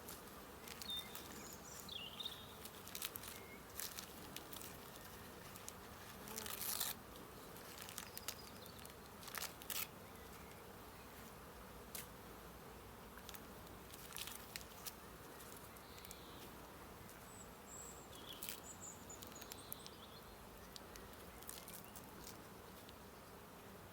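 Honey bees buzzing around an open hive, a steady faint hum, broken by scattered sharp clicks and knocks, most of them in the first half.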